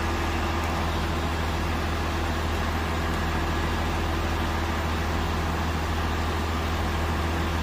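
Truck engine running steadily at idle: an even, low hum that does not change.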